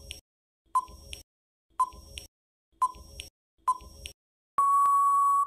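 Quiz countdown-timer sound effect: four short beeps about a second apart, then one long steady beep of about a second that signals time is up.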